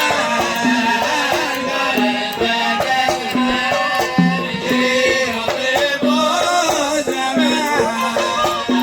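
Sawt kuwaiti song played by a live band: a winding melody over a steady hand-drum beat of about two strokes a second, with rattle-like percussion.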